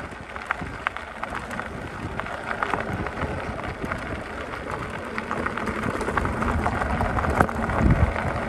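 Electric bike's tyres rolling over a gravel road, with many small stone ticks and crunches, and wind rumbling on the microphone that grows louder in the second half.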